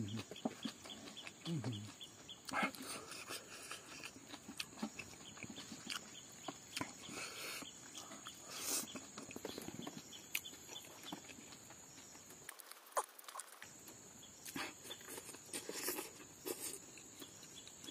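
Close-up eating sounds: chewing, lip smacks and small clicks as rice and fried silkworms are eaten by hand, with a faint steady high tone underneath that drops out briefly about two-thirds of the way in.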